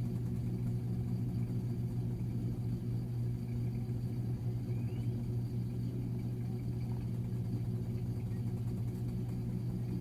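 Samsung washing machine spinning its empty drum, a steady low hum with no knocking or banging; the drum has smoothed out and runs pretty quiet.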